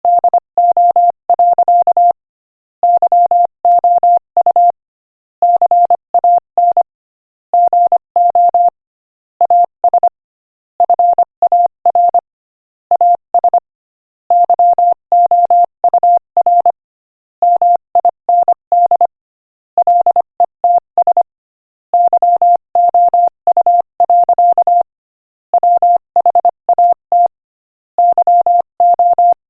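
Morse code sent at 25 words per minute as a single steady beep keyed on and off in quick dots and dashes, with short pauses between words, spelling out an inspirational quotation.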